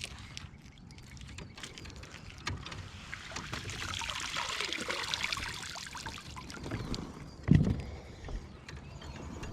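Water splashing and dripping beside a kayak for a few seconds from about three seconds in, then a single dull thump on the hull about seven and a half seconds in, the loudest sound.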